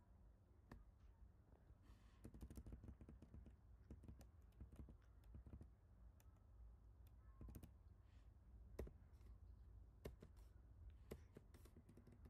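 Faint computer keyboard keystrokes, single clicks and short irregular clusters rather than steady typing, over a low steady hum; one keystroke nearly 9 seconds in is louder than the rest.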